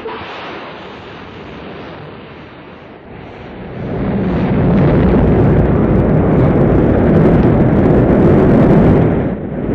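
Rocket launch roar: a noise starts abruptly, then the engine roar builds from about four seconds in to a loud, deep, steady rumble, dipping briefly near the end.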